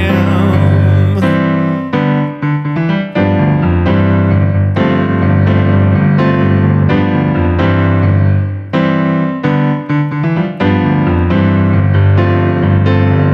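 Electric keyboard playing a solo funk groove: rhythmic chord stabs over a low bass line, after a last sung word in the first second.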